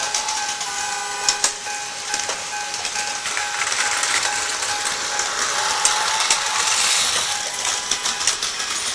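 Battery-powered Tomy toy train running on blue plastic track: a steady motor-and-gearbox whine with scattered sharp clicks and rattles from the wheels and track.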